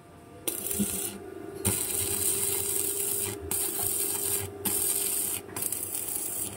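Crackling, sizzling arc of a stick (MMA) weld from a FUGU TB-300 inverter welder, run at full current with a 12-gauge electrode. The arc strikes about half a second in and cuts out briefly a few times, with a steady hum underneath.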